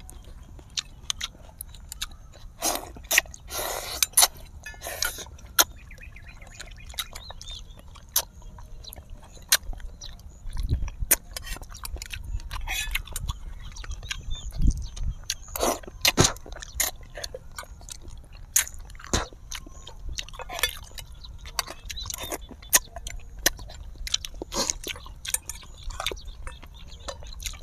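Close-miked eating: chewing and biting, with frequent short clicks of spoons and forks against small metal pans and a metal tray, and a couple of dull thumps near the middle.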